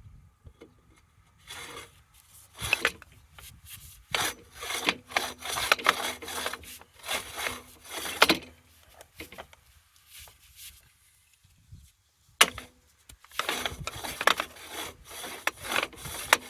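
Metal driveline parts sliding and scraping against each other in repeated rough strokes as they are worked together after cleaning off rust and old grease, with a pause of about three seconds near the middle.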